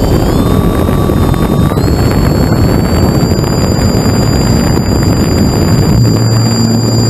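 Radio-controlled model airplane's motor and propeller whining, the pitch rising over the first two seconds and then holding steady, under loud wind rush on the onboard camera's microphone.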